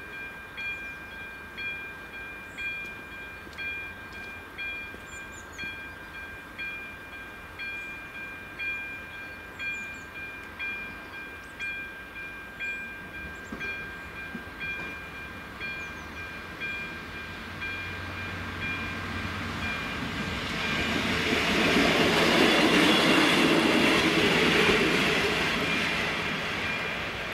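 Level-crossing warning bell ringing about once a second. From around 17 s a train grows louder, is loudest about 21 to 25 s in as it runs over the crossing, then fades.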